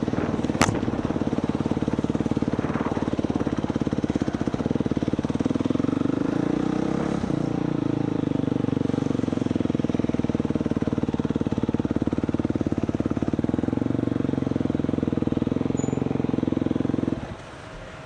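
Dirt bike engine running at a steady, even pace with no revving, a sharp click a little over half a second in; the engine sound stops abruptly near the end.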